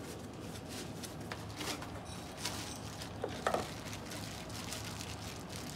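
Scattered light clicks and rustles of hands and a tool working on parts in a tractor engine bay, the loudest a little past halfway, over a steady low hum.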